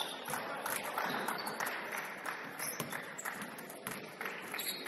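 Basketball game on a hardwood gym floor: running footsteps and the ball being dribbled, a string of short sharp knocks over the hum of the hall.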